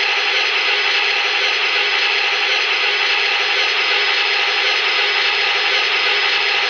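Model train sound system playing the gas-turbine sound of an MTH O gauge Canadian National Turbo Train: a steady hissing turbine whine while the train stands waiting to depart.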